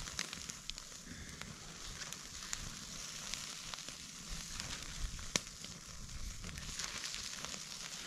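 Sausages sizzling on a grill over an open wood fire, with scattered pops and crackles from the fire and one sharper crack about five seconds in.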